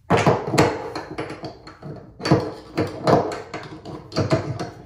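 Metal tools clanking in a bathtub drain: a series of sharp knocks with a short ring as a steel tub drain extractor and a screwdriver are fitted together to tighten the new drain.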